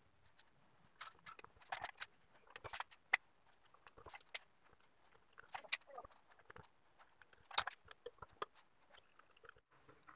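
Faint, irregular clicks and scratches of resistors being handled and their wire leads pushed into a circuit board.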